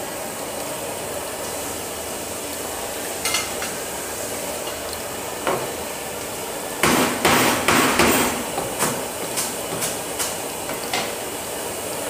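A steady hiss with a burst of sharp knocks and clatters about seven seconds in, thinning out into a few scattered clicks.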